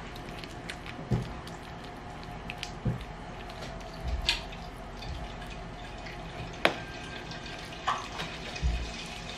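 Metal spoon scraping and tapping against a metal baking tin while spreading a thick creamy chicken-and-potato mixture, with soft wet squelches of the food. Irregular short clicks and soft thuds, the sharpest click about two-thirds of the way through.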